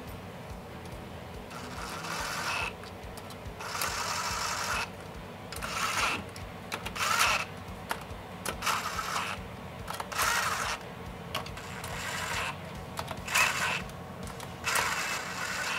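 Cordless drill/driver running cam cap bolts down into the cylinder head of a Kawasaki 12F jet ski engine, its motor whirring in about ten short runs with brief pauses between bolts. The bolts are only being snugged down loosely before final torquing.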